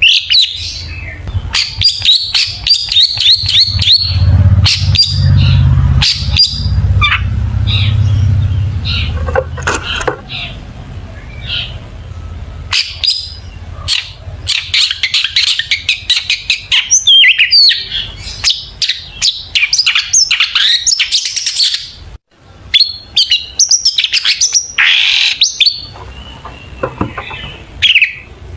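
Long-tailed shrike (cendet) singing: a dense, rapid string of varied chirps and short trilled phrases. A low rumble runs underneath from about four to nine seconds in.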